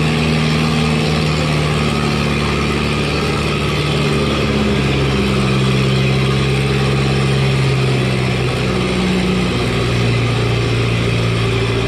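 Antique tractor engine running hard in a tractor pull, pulling the weight sled down the track. The engine note stays steady, then drops lower about four to five seconds in as the load builds.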